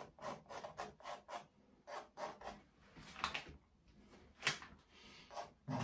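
Palette knife scraping and dabbing acrylic paint and texture paste on a painting: a quick, irregular run of short scraping strokes, the sharpest about four and a half seconds in.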